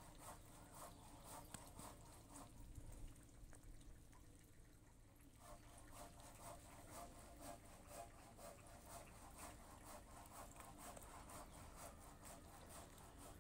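Faint, wet chewing and lip-smacking of a dog eating bread, a steady run of soft clicks.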